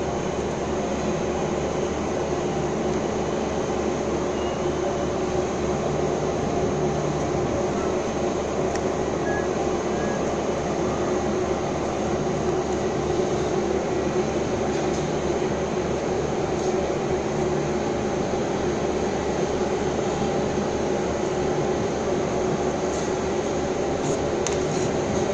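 Crane's diesel engine running at a steady drone with a constant hum while it carries a wind turbine nacelle on the hook.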